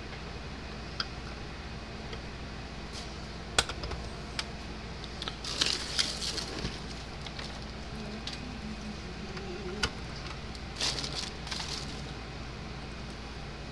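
Hands handling the plastic case and parts of an electric fence charger: sharp clicks and knocks, with two short spells of rustling and scraping. A steady low hum runs underneath.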